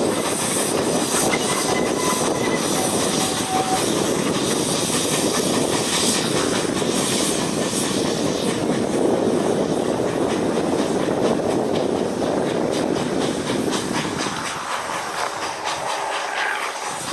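Small narrow-gauge steam locomotive hauling carriages past: wheels clicking over the rail joints with a hiss of steam, dying away near the end.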